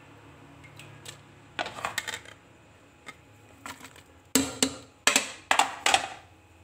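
Pieces of ginger and chopped onion dropped into an aluminium pot of cut tomatoes: a few light knocks, then a run of louder clattering impacts with brief metallic ringing in the second half.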